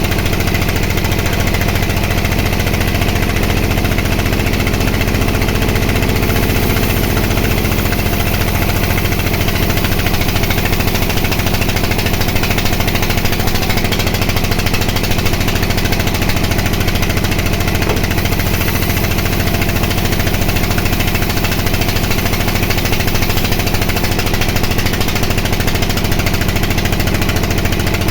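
Sawmill band saw and its drive running steadily, a constant loud machine hum with a continuous hiss over it.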